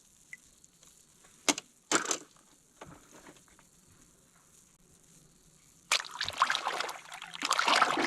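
Two sharp knocks about one and a half and two seconds in, then from about six seconds water splashing and sloshing, typical of toys being washed in water.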